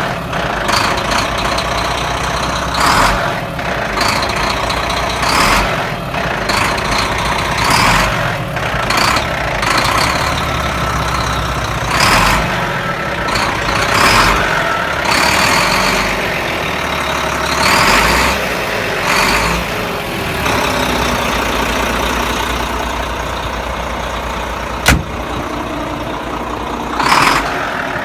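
Renault Premium 460 DXi truck's 11-litre Volvo diesel engine running with a rattle and clatter, a sound that is not right for the engine, with irregular louder surges every second or two and one sharp click near the end.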